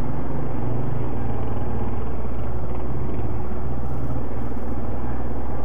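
ATV engine running steadily, a low drone with slight shifts in pitch.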